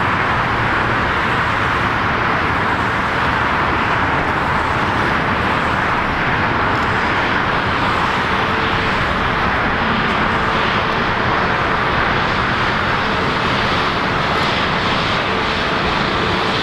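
Airbus A320neo's CFM LEAP-1A turbofan engines running at taxi power as the jet rolls by, a steady jet-engine rush that holds an even level.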